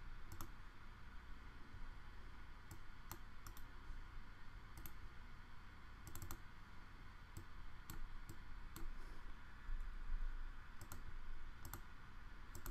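Computer mouse clicks, a dozen or so single and paired clicks at irregular intervals, over faint steady background noise.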